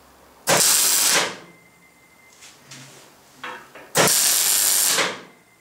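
Electric arc welding on steel gas cylinders: two short bursts of welding crackle, each about a second long, roughly three and a half seconds apart, as the seam is tack-welded.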